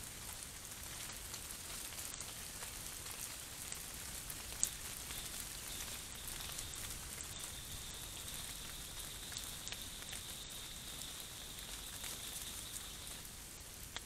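Steady faint hiss of a trail camera's microphone at night, with scattered soft ticks and one sharper click about four and a half seconds in. A thin, high, steady note holds from about five seconds in until about a second before the end.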